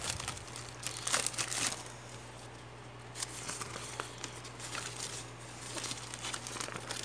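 Clear plastic wrapping and a folded paper invoice crinkling and rustling as they are handled and pulled from a cardboard parcel. The crinkling is busiest in the first two seconds, then comes in scattered rustles. A faint steady low hum runs underneath.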